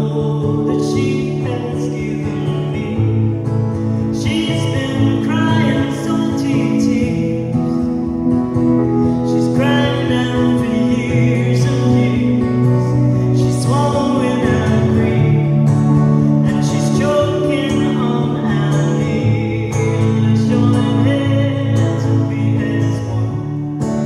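Live folk song: a woman singing in phrases over a strummed acoustic guitar, with electric keyboard accompaniment.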